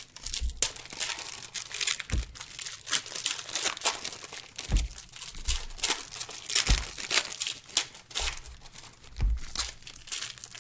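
Plastic wrapping crinkling and crackling as it is handled, with a few soft low thumps.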